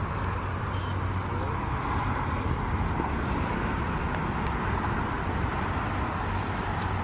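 Steady road traffic noise: a continuous rush of passing vehicles over a low hum.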